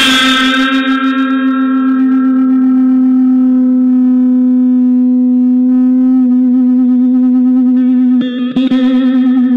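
Custom 25-string guitar holding one long sustained note after a strummed passage. The note wavers slightly about six seconds in. A brief flurry of plucked strings comes near the end, and then the note carries on.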